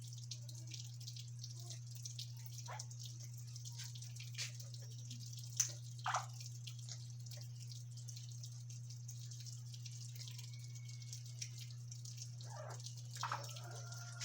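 Pet parrots making scattered short clicks and brief chirps, loudest a little past the middle, over a steady low hum.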